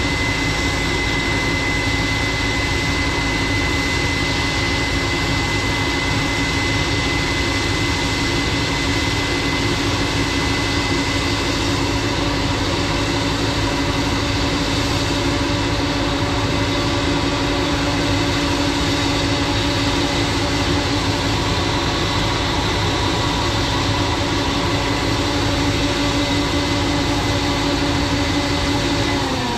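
Combine harvester running steadily, its engine and machinery holding a constant hum with a high whine over it. Right at the end the pitch starts to fall as it winds down.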